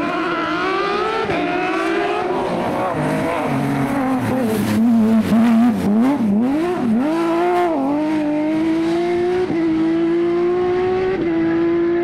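Porsche 911 GT rally car's flat-six engine under hard acceleration, its note climbing through quick upshifts. Around the middle the pitch dips and jumps several times as the driver brakes, blips and lifts for a corner, then it pulls away on a long rising note with a couple more upshifts.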